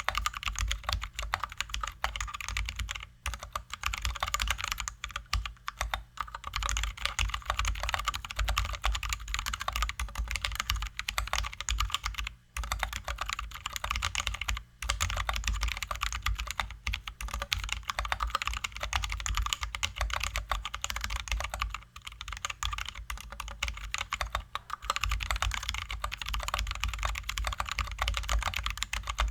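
Continuous fast typing on a Drop ALT High-profile mechanical keyboard with lubed, filmed Zealios V2 67g tactile switches and XDA-profile keycaps: a dense run of keystroke clacks, pausing only for a moment a few times.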